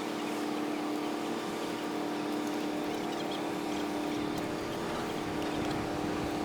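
Steady engine drone of a boat in the harbour, a constant hum of several steady tones with no change in pitch or level.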